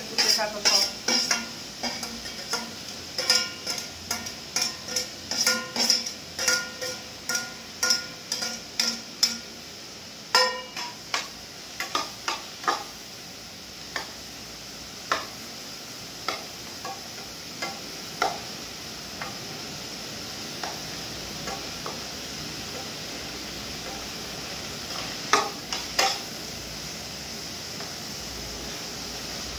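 Spatula stirring and scraping in a steel pan of frying tomatoes, with quick metallic clinks two or three a second for the first ten seconds, then sparser ones, over a steady sizzle.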